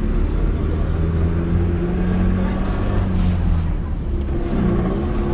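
Inside a city bus on the move: the engine drones steadily at a low pitch under a constant rumble and hiss, with a slight dip in pitch near the end.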